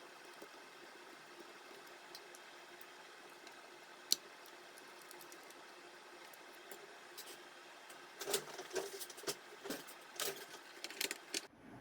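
Faint steady hum with a single sharp click about four seconds in, then a run of small clicks and knocks over the last few seconds, cut off suddenly near the end.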